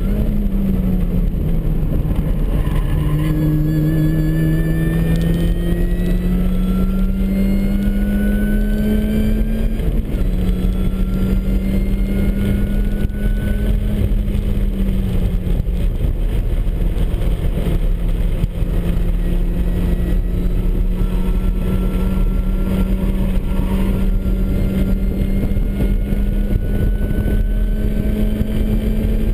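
Supercharged MINI Cooper S four-cylinder engine under load on track, heard from inside the car. The revs climb slowly for several seconds, drop back at about ten and fifteen seconds in, then hold steady, with a thin high whine rising and falling along with them.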